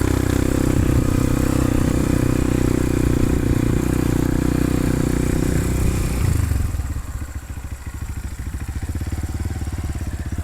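Motorcycle engine running steadily, then about six seconds in the revs fall away and it settles into a quieter, slower pulsing beat.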